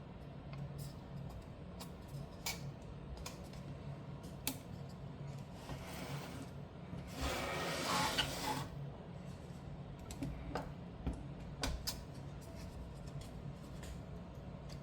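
Light clicks and handling noises of a graphics card and small tools being worked by hand, with a longer scraping rub about seven seconds in, over a low steady hum.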